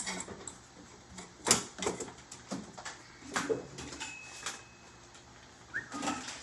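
Scattered knocks and clicks of a heat gun and other objects being picked up and handled on a cluttered worktable. A faint high steady tone sounds for about a second midway, and a short falling whistle-like note comes near the end.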